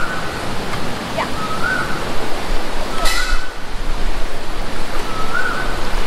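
Steady loud rush of water, like surf or a waterfall. A short chirping tone recurs every second or two, and a brief hiss comes about three seconds in.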